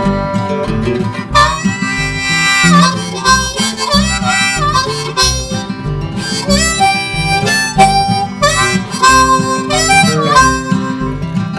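Background music: a harmonica melody over strummed acoustic guitar and a steady beat, the instrumental part of a country-style song.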